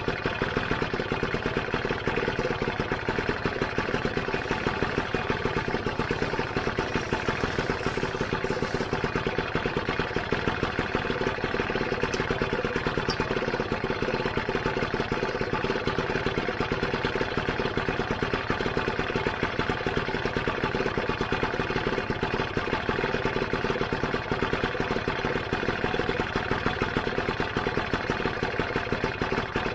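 Rebuilt Lambretta GP's two-stroke single-cylinder engine idling steadily after a kick start, with an even, fast pulse throughout.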